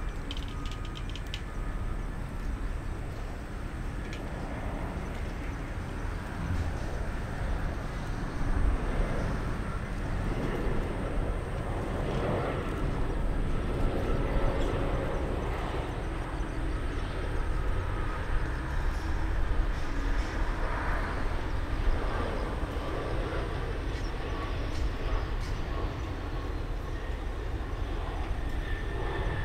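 Airbus A320 airliner's jet engines on final approach: a steady low rumble and hiss that slowly grows louder as the plane nears touchdown.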